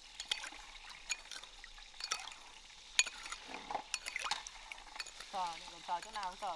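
Spoon stirring in a bowl, mixing sugar into a sauce, with light irregular clinks and taps against the bowl. Near the end a person's voice is heard briefly and quietly.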